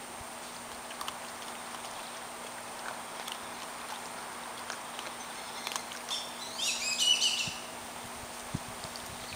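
Faint small splashes and clicks of water as a raccoon dabbles its forepaws in a shallow dish of water. About six seconds in, a short, high-pitched chirping call, most like a bird, is the loudest sound.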